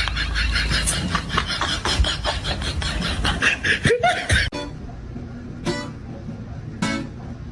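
Plucked-guitar music with laughter over it. It changes abruptly about four and a half seconds in to something quieter with a few short, sharp noises about a second apart.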